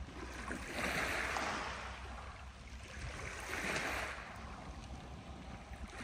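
Strong wind blowing in gusts, surging twice over a steady low rumble.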